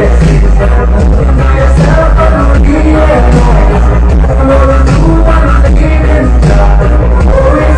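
Music with singing and a heavy, constant bass line, played very loud through a large sound-system speaker stack.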